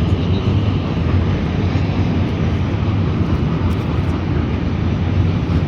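An engine running steadily at an even speed, with a strong low hum, cutting off abruptly at the end.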